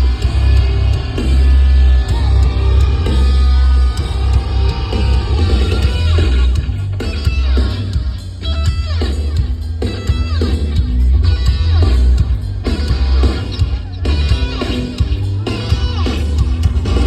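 Rock band playing live at full volume: electric guitars over heavy bass and drums, with a strong, booming low end.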